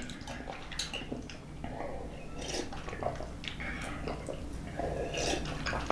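A man drinking from a glass mug, with a string of faint gulps and swallows.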